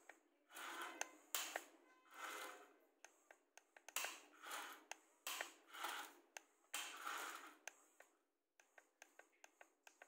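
Small electric gear motors of a toy excavator whirring in short bursts, about eight in all, as the arm and bucket move, with sharp clicks in between.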